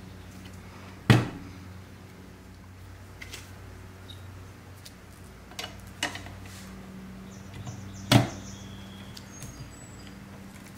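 Sharp knocks and clicks as the parts of a Tonka toy cement mixer are handled and fitted together during reassembly: two loud knocks, about a second in and again near the end, with a few lighter clicks between, over a steady low hum.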